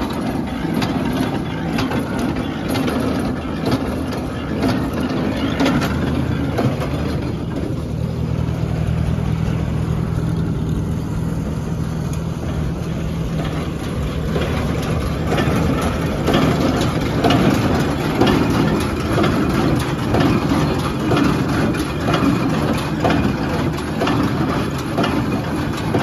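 International 37 small square baler running behind a Farmall 400 tractor: the tractor engine's steady drone under dense, continuous clattering of the baler's gears, plunger and pickup, a little louder in the second half.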